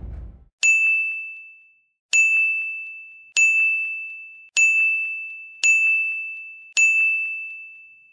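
A bright bell-like ding struck six times, the same sound each time, about a second or so apart. Each strike rings on one clear pitch and fades out before the next.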